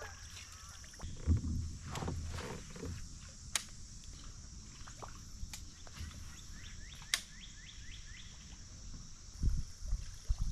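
Handling noises in a fishing kayak: a few low thumps and knocks, about a second in and again near the end, and several sharp clicks, over a steady high hiss.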